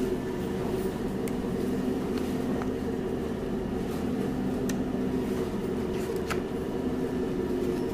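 Steady machine hum, with a few light clicks from a sheet of plastic being handled.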